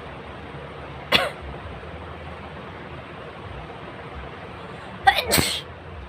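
A person sneezing twice, brought on deliberately by tickling the nose: a short sneeze about a second in, then a louder two-part sneeze near the end.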